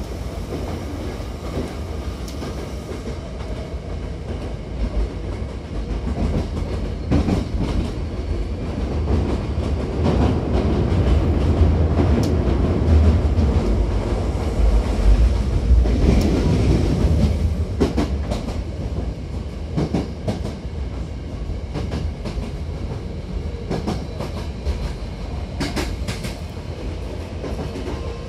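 Hankyu 7000-series commuter train running, heard inside the car by its closed doors: a steady low rumble of wheels on rail with clicks and clacks over the joints. The rumble grows louder from about ten seconds in and eases off after about seventeen seconds.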